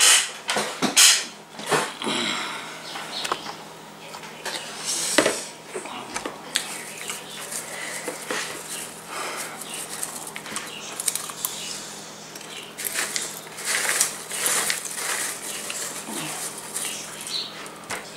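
Popcorn rustling and crackling as a hand digs into a plastic bowl and picks out pieces, with crunchy chewing, in short irregular bursts that are loudest in the first couple of seconds.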